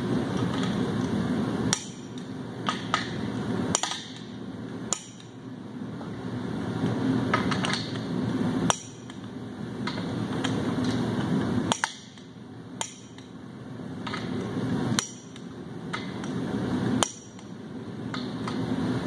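Click-type torque wrench tightening the main bearing cap bolts on a 7.3 Powerstroke diesel block to 96 ft-lb. Each pull builds up and ends in a sharp click as the wrench breaks at its set torque, about seven times. Smaller ratchet clicks come between pulls as the wrench is reset on the next bolt.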